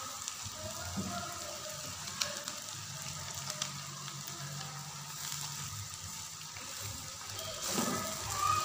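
Potato and radish-pod curry sizzling gently in its oil in a pan on low heat, with small scattered crackles.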